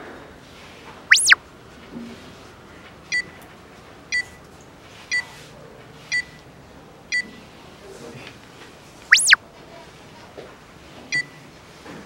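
Edited-in sound effects for a five-second answer timer: a quick rising-and-falling swoosh about a second in, then five short electronic beeps a second apart counting down. A second swoosh comes about nine seconds in, and another beep near the end.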